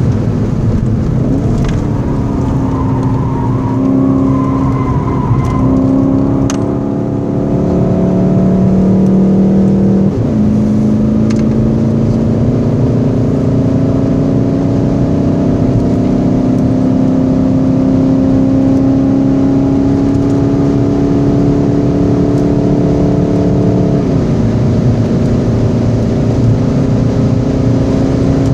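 Stock VW Golf 7 GTD's 2.0-litre four-cylinder turbodiesel, heard from inside the cabin with tyre and road noise, accelerating hard. The engine note climbs slowly in each gear and drops with an upshift about ten seconds in and again near the end.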